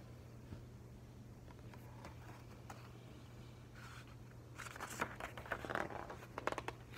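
Paper pages of a hardcover picture book rustling and flapping as the book is flipped through and handled, a cluster of crackly rustles in the last two or three seconds after a stretch of quiet room tone with a faint steady hum.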